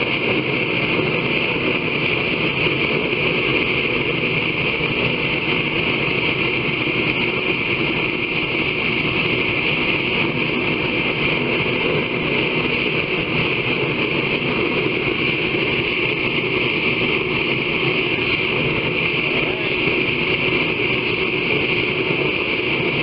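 Forge running steadily: a constant rushing noise with no breaks or hammer strikes.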